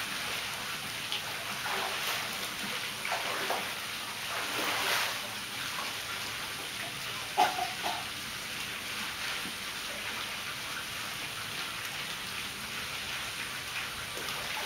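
Pool water splashing and lapping as swimmers move through it, over a steady hiss of running water. There is a brief sharp splash-like sound about seven seconds in.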